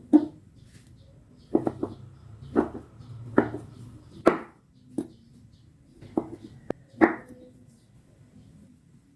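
Irregular knocks and taps of kitchen utensils during food preparation, about a dozen sharp strikes at uneven intervals.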